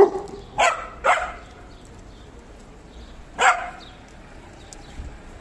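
A dog barking: three barks in quick succession at the start, then a single bark about three and a half seconds in.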